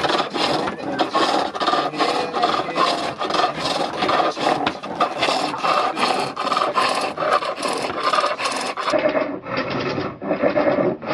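A hand tool working wood in quick back-and-forth strokes, about two to three rasping strokes a second; from about nine seconds in the strokes sound duller.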